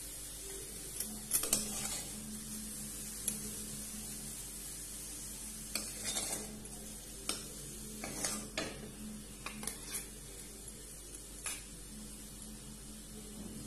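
A spoon scraping and clinking against a metal kadai and a steel bowl as cooked dry fish and bamboo shoots are scooped out of the pan. There are scattered short scrapes and knocks, several clustered around the middle.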